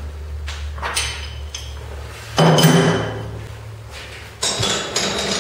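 A hammer tapping a metal block down in a milling-machine vise to seat it before milling: about four knocks, the loudest about halfway through with a short ring, and two more near the end.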